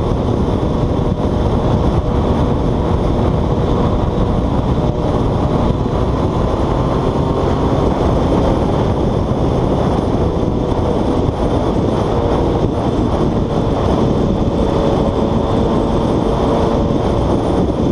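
Motorcycle riding at highway speed, heard through a helmet-mounted camera: steady, heavy wind rush on the microphone with the bike's engine hum underneath.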